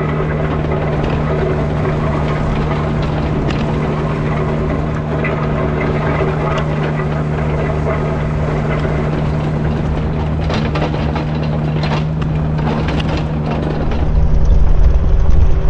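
Kubota U55-4 mini excavator's diesel engine running steadily under work, with a few short knocks a little past the middle. The sound gets louder near the end.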